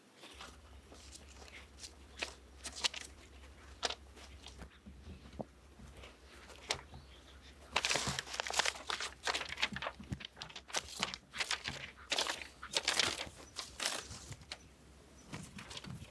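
Crinkly rustling and clicking from a kitten gripping and tussling with a toy, in irregular bursts that get busier about halfway through.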